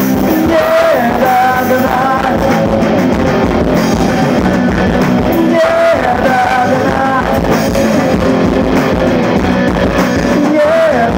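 Live rock band playing loud through a PA: distorted electric guitars, bass guitar and drums, with a melodic line gliding over the top.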